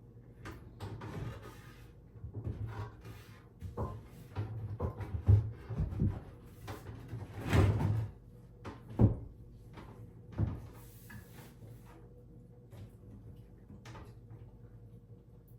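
Wooden vanity cabinet being shoved and bumped into place, a run of irregular knocks, thuds and scrapes, the sharpest knocks about five, nine and ten seconds in and a longer scrape around the middle; the cabinet is being shifted sideways to line it up over the plumbing holes.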